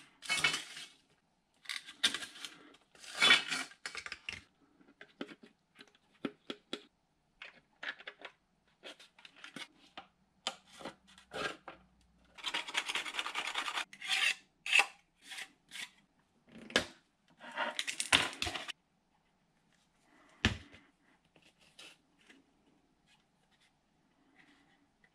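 Hands handling and rubbing 3D-printed plastic plane parts against each other and the bench: a run of scrapes, rustles and clicks, with a longer rub about halfway through and a few sharper knocks after it.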